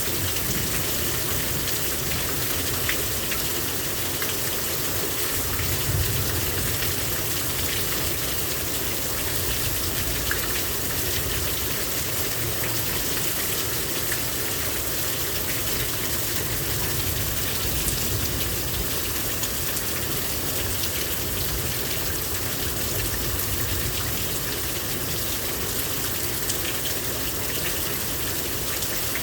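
Heavy rain pouring down steadily, a dense patter of drops with water gushing.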